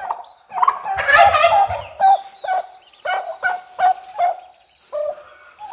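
Turkey gobbling once, a loud rattling call about a second in, followed by a run of short clucking calls, about three a second, and one more near the end.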